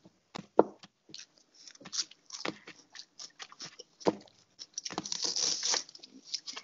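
Kitchen knife cutting through a raw onion on a cutting board: a run of irregular, crisp cuts and taps, with a longer, louder stretch of cutting about five seconds in.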